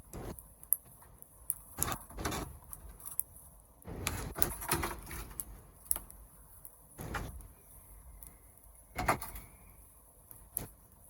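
Wood fire burning, with irregular crackles, pops and short noisy bursts at uneven intervals.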